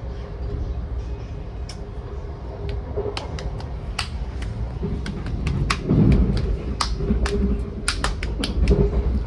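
Train carriage running on the rails, heard on board: a steady low rumble with a constant hum, and many sharp clicks and knocks that come thicker from about three seconds in, swelling loudest around the middle and near the end.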